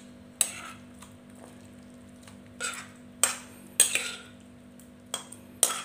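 Utensil clinking and scraping against a bowl as buni berries are emptied out of it into a stone mortar: about half a dozen sharp clinks at uneven intervals.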